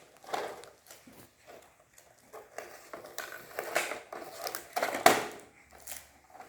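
Handling noises of a plastic toy cash register: scattered rustling, clicks and knocks, the loudest about five seconds in.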